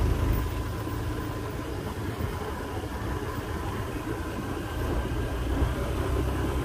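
Steady low rumble of a moving vehicle's engine with road and wind noise, heard from on board as it travels along a paved road.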